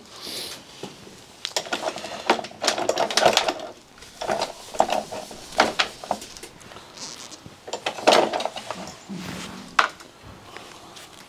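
Metal parts clinking and rattling in irregular sharp clicks while a bolt is threaded in by hand.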